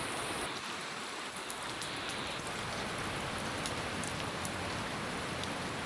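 Heavy rain falling in a steady hiss, with faint scattered drop ticks.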